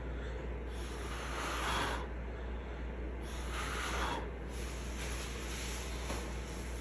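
A person blowing air onto wet acrylic pour paint to push open a bloom, in two long puffs about two seconds apart.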